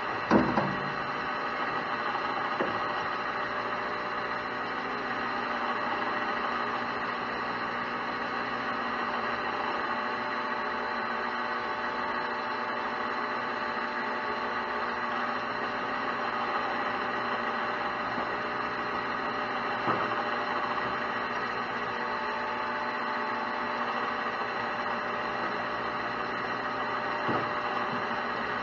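Metal lathe running steadily with a hum of many even tones while a drill is fed into a spinning copper bar. A sharp knock comes just after the start, and a few fainter clicks come later.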